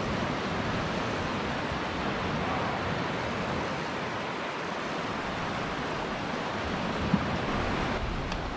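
Small waves breaking and washing up the beach with wind on the microphone, a steady rush. A single sharp click about seven seconds in.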